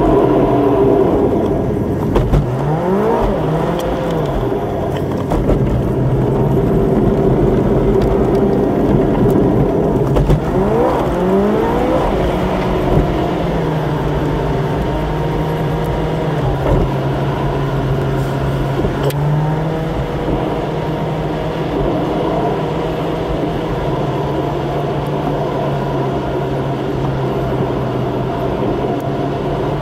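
Car engine and road noise heard from inside the cabin while driving. The engine pitch climbs twice, about two seconds in and again around ten seconds in, as the car accelerates, then holds steady at a cruise for the rest of the time.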